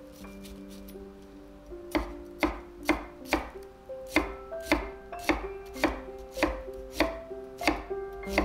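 Kitchen knife chopping an onion on a wooden cutting board: sharp, regular strikes of the blade on the board, about two a second, starting about two seconds in.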